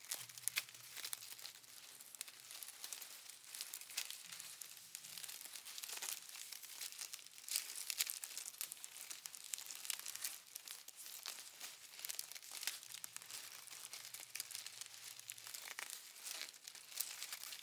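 Paper being crumpled: a continuous dense crackling made of many small sharp crackles.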